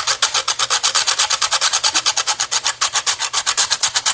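Whole nutmeg being grated on a four-sided metal box grater: rapid, even scraping strokes, several a second.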